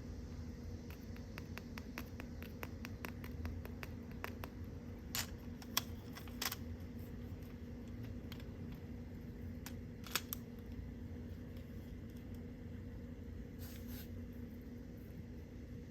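Light clicks and taps from small plastic toy pieces being handled, first a quick run of faint ticks, then a few sharper clicks spaced seconds apart, over a steady low electrical hum.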